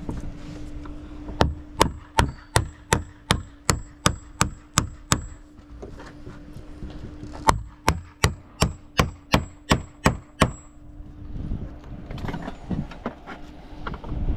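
Hammer driving nails by hand, two quick runs of sharp strikes at about three a second with a pause of a couple of seconds between them.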